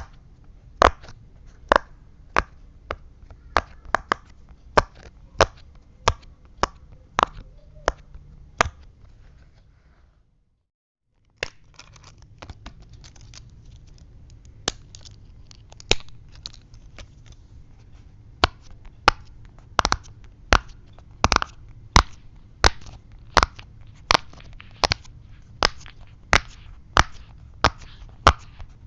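Silicone pop-it fidget toy's bubbles being pressed one after another, each giving a sharp pop, about one to two a second. There is a brief break of dead silence about ten seconds in.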